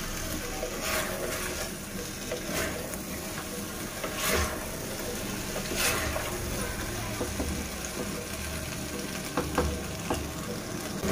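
Potatoes and masala sizzling as they fry in oil in a clay pot, while a wooden spatula stirs and scrapes them in irregular strokes.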